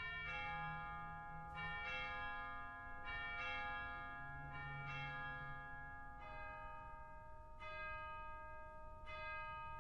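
Bells struck one after another, seven strokes about a second and a half apart, each ringing on into the next. From about six seconds in the strokes sound lower.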